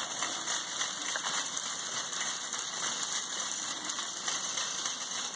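Wire shopping cart being pushed along a store floor, its wheels and basket rattling steadily.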